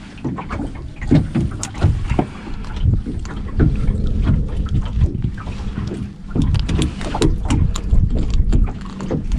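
Wind buffeting the microphone over water lapping against the hull of a small boat, with many small clicks and knocks from hands working at a fishing hook and rig.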